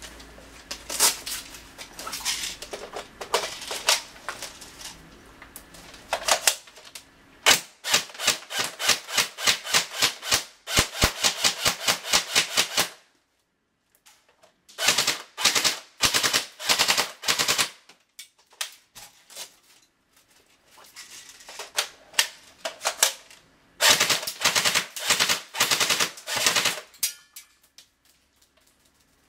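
Famas F1 Cybergun airsoft electric gun firing, its gearbox clacking with each shot. First come separate shots, then long rapid strings and bursts. There is a short pause about halfway through.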